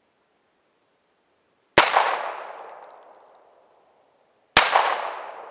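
Two shots from a handgun, about three seconds apart, each a sharp crack followed by an echo that dies away over about two seconds.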